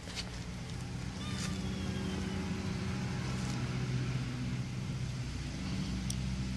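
A motor vehicle's engine running steadily, a low even hum with no rise or fall in pitch, with a few faint clicks over it.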